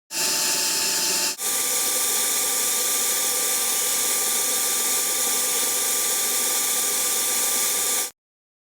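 Minimax S600P bandsaw with a carbide-tooth blade running and cutting wood: a steady, loud hissing with a faint steady whine. It breaks off briefly just over a second in, then runs evenly and stops abruptly near the end.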